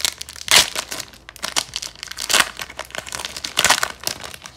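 Clear plastic wrapper of a hockey card pack crinkling as it is picked at and torn open, in irregular crackles with three louder rustles.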